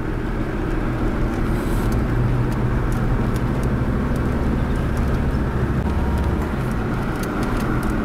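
Car engine and tyre noise heard from inside the cabin while driving: a steady low hum, a little louder through the middle.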